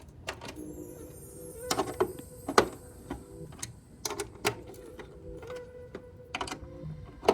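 Irregular clicks and light knocks of car parts being handled and fitted by hand, with the loudest knock about two and a half seconds in.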